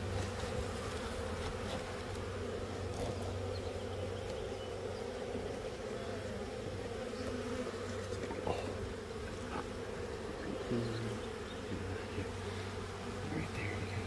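Honeybees buzzing in a steady hum, many of them flying over an opened hive.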